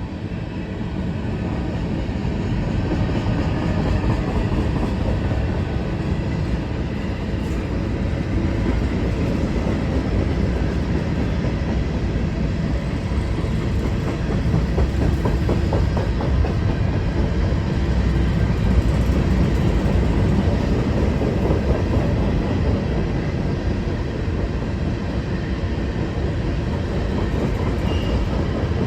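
Long freight train of covered hopper cars rolling steadily past, the wheels clicking over the rail joints.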